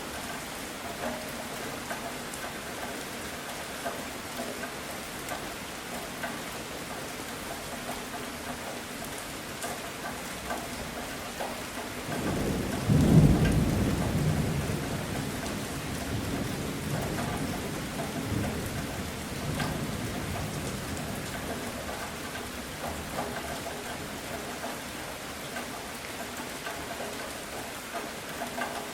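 Steady rain falling, with a roll of thunder that breaks in suddenly about twelve seconds in, peaks a second later and rumbles away slowly over the following several seconds.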